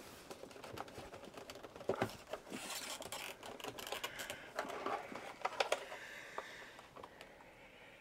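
Clicks, knocks and scrapes of an Amstrad ALT-286 laptop's hard plastic case being handled and its lid opened, with a crinkly rustle of the bubble wrap over its keyboard in the middle.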